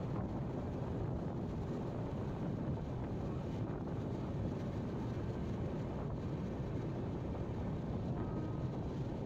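Steady wind rushing over the microphone, mixed with the low rumble of a moving vehicle.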